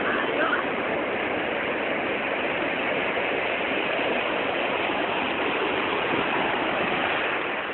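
Sea surf breaking and washing up a sandy beach: a steady rushing of waves.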